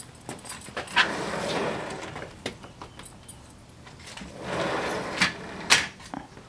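Sliding glass patio door being tugged at its handle to check that it is locked. A sharp knock about a second in is followed by a second or so of noise from the door. It comes again about four and a half seconds in, ending with two sharp knocks.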